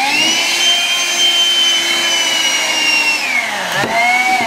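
Small handheld vacuum cleaner running with a motor whine, cleaning up loose rabbit fur. It switches on and runs steadily for about three seconds, winds down, then runs again briefly and cuts off.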